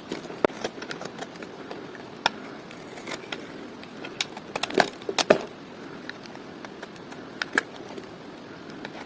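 Dry bar soap being cut: irregular crisp cracks and crunches over a soft scraping hiss, loudest in a cluster about five seconds in.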